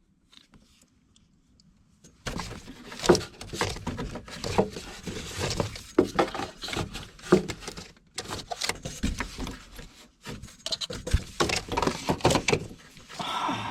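Handling noise: irregular clicks, knocks and rustling rattles that start about two seconds in, after near silence.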